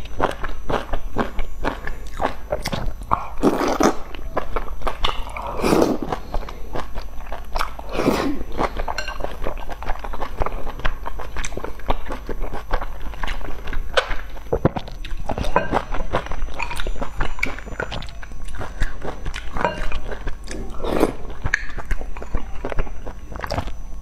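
Close-up eating sounds of noodles in soup: wet chewing and mouth smacks throughout, broken by several louder slurps a few seconds apart.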